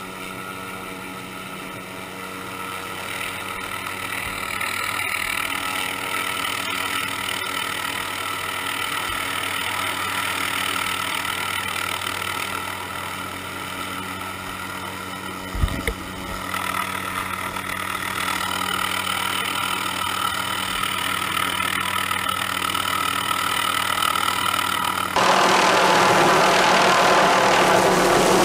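Helicopter engine and rotor running steadily overhead, heard from a camera riding on its slung load, with a layered engine whine and wind rush and a single brief knock about halfway through. Near the end the sound switches abruptly to a louder, rougher rush of helicopter noise.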